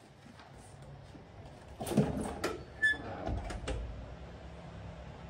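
A door being pulled shut: a cluster of sharp knocks and clicks from the door and its latch, with a brief squeak in the middle.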